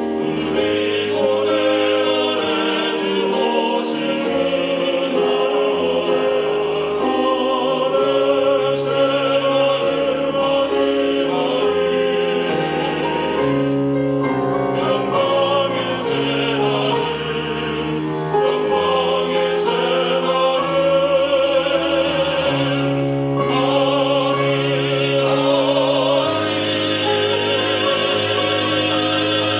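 A vocal trio singing a church special hymn in a classical, operatic style, long notes with vibrato, over a low instrumental accompaniment.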